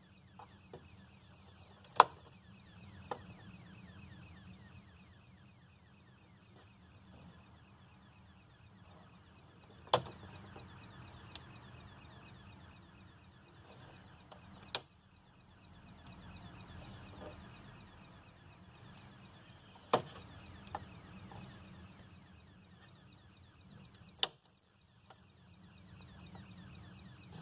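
An electrical switchboard chirping: a rapid, even run of high-pitched chirps that goes on without a break. Five sharp loud clicks break in, about two, ten, fifteen, twenty and twenty-four seconds in, the first the loudest.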